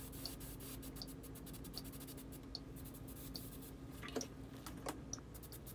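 Quiet room tone with a faint steady hum that stops about five seconds in, and a scatter of small ticks and scratches, with a slightly stronger click or knock about four seconds in.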